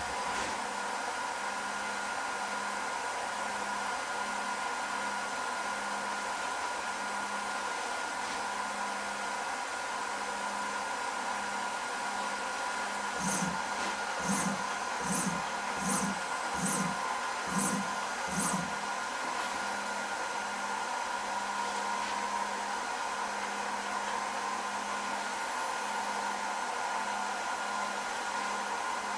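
Hobby CNC router machine giving off a steady whir. Partway through, the gantry makes seven short buzzing moves in quick succession as the bit is jogged into position.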